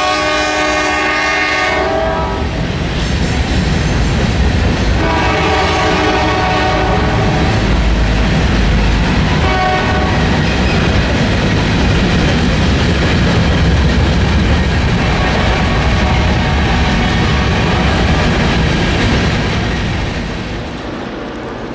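Freight train of covered hopper cars rolling past with a steady rumble and clatter of wheels on rail. A locomotive horn sounds two long blasts in the first eight seconds and a short one about ten seconds in. The sound drops lower near the end.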